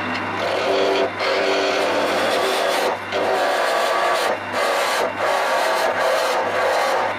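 Wood lathe running with a steady motor hum while a turning tool cuts a square blank round, giving a loud, rough, continuous cutting noise. The cutting breaks off briefly about four times as the tool is lifted and set back on the wood.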